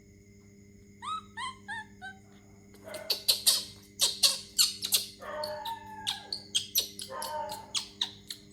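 Baby monkey making a quick run of short squeaky calls about a second in, then more squeaks mixed with a flurry of sharp clicks.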